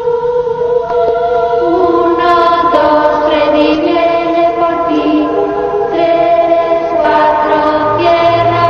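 Music: a choir singing long held notes, the chords changing every second or so, with a low note joining near the end.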